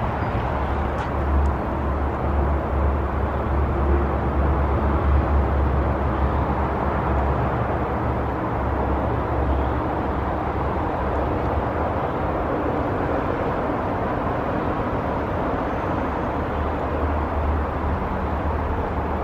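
Steady freeway traffic noise: an even, unbroken rumble of passing cars.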